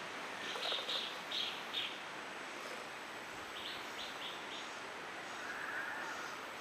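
Banded woodpecker calling: two quick series of four or five short, high, evenly spaced notes, the first about half a second in and the second about three and a half seconds in, over a steady outdoor hiss.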